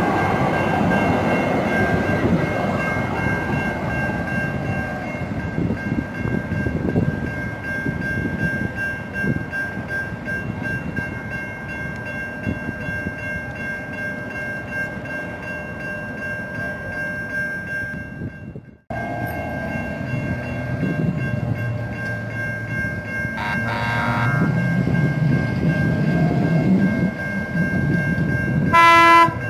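San Diego Trolley SD100 light-rail cars rumbling past on their rails with a steady high whine. After a brief cut, a trolley pulls into a station and sounds a short horn blast near the end.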